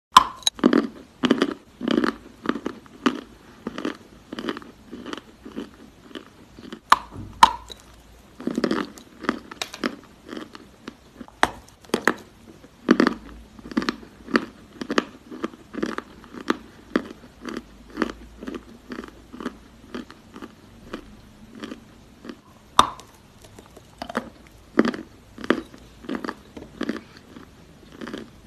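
A mouthful of Ural clay being bitten and chewed close to the microphone: a crunching bite at the start, then steady crunchy chewing about two strokes a second, with a few sharper cracks along the way as fresh bits break off.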